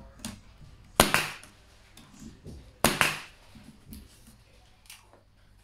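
Pneumatic pin nailer firing twice, about two seconds apart, driving pins to fix a pine stair spindle in place. Each shot is a sharp crack followed by a brief after-thump.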